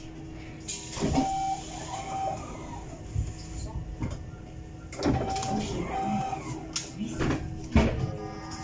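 Electric city bus standing at a stop with its doors open: a pair of short electronic beeps sounds twice, over a steady electric hum, with voices and the knocks and footsteps of passengers stepping through the doorway.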